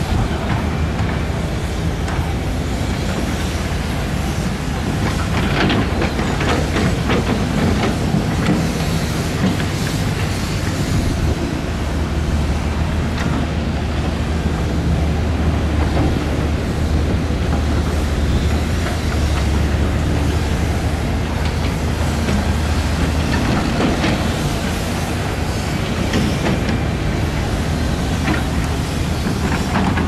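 Diesel engine of heavy tracked earthmoving machinery running steadily under work, with clanks now and then.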